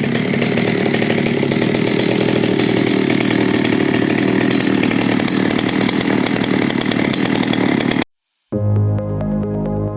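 Stihl 020 two-stroke chainsaw engine running steadily, which stops abruptly about eight seconds in. After a brief silence, electronic background music follows.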